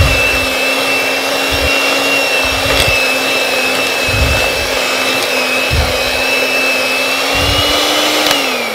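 Electric hand whisk running at a steady whine as its beaters whisk an egg and a spoonful of flour into creamed butter and sugar. Near the end it is switched off and the whine falls away.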